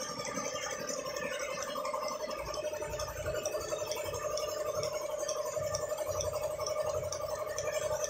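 Milking machine running: a steady hum with a fine, even rattle, and a few low knocks in the middle.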